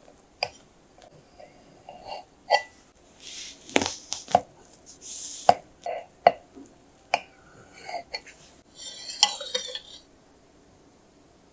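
Knife cutting a chocolate sponge cake into pieces: irregular knocks and taps of the blade on the board, with short scraping and rustling strokes, stopping about ten seconds in.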